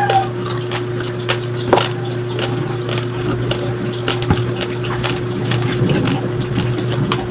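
Metal spoon scraping and scooping peanut butter out of a jar and setting it down on raw rice, with scattered soft clicks and taps over a steady low hum.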